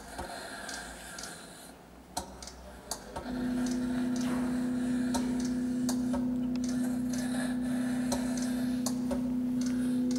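Sound-art performance: scattered soft ticks and clicks, then about three seconds in a steady low drone tone with a few faint overtones enters and holds.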